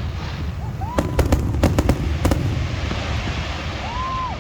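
Aerial fireworks going off in close succession: a continuous deep rumble of booms with sharp crackling pops through the first half.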